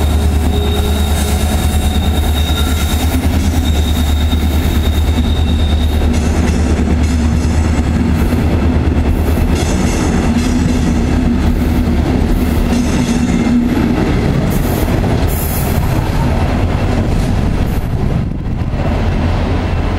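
DSB class ME diesel locomotive's EMD two-stroke engine running with a deep drone as it pulls a train away, fading after several seconds. The double-deck coaches then roll past with wheels clattering on the rails.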